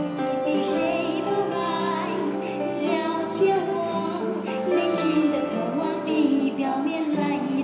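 Women's voices singing a Mandarin song through stage microphones, in long held notes.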